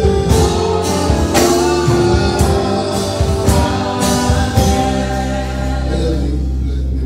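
Gospel music with singing. Percussive hits come about once a second and stop about five seconds in, leaving held chords.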